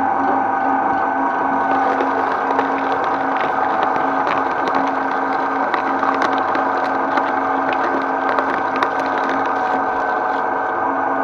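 Twin-shaft shredder running with a steady motor hum while its cutter discs crunch through a coconut's husk and shell, with scattered sharp cracks throughout.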